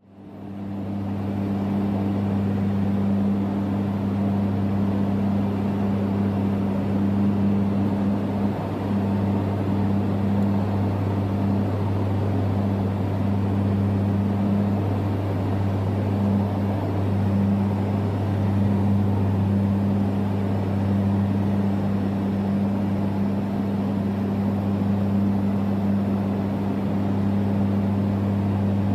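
Beechcraft King Air twin turboprop heard from inside the cabin in cruise: a steady, deep propeller drone with a second, higher hum above it, over a constant wash of engine and air noise. It fades in at the very start and then holds level.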